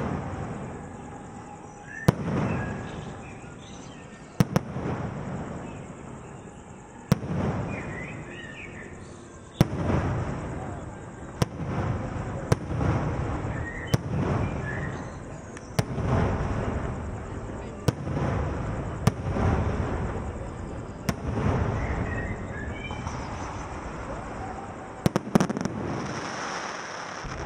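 Aerial fireworks shells bursting: a sharp bang every two or three seconds, each followed by a low rolling rumble, the bangs coming closer together from about ten seconds in.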